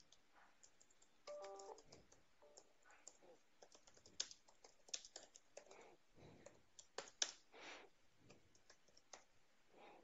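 Typing on a computer keyboard: irregular keystroke clicks, with a few louder keystrokes in the middle and a brief stepped tone about a second and a half in.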